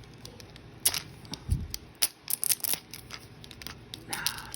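Plastic packaging being handled and pulled open, a Mini Brands toy capsule's wrapper, giving several sharp crinkles and clicks, with a soft thump about a second and a half in.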